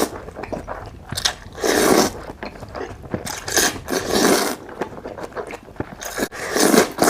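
Close-miked mukbang eating: biting and chewing food in bursts, with wet, crunchy mouth sounds.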